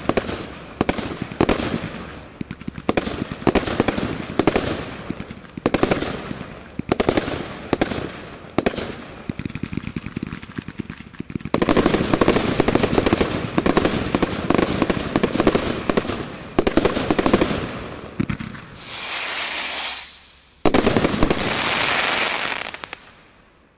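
Brothers Pyrotechnics 'The Big Show' Category 3 combination Roman candle firing. Shots launch and burst about twice a second, then from about halfway it turns into a fast, dense barrage. It ends with a short hiss and then a loud, continuous crackle of many small stars that dies away just before the end.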